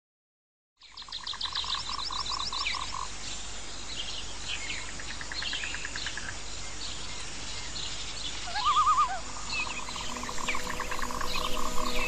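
Tropical rainforest wildlife chorus beginning about a second in: trains of rapid pulsed calls and many short chirping calls, with a louder warbling call about nine seconds in. Steady held musical tones fade in near the end.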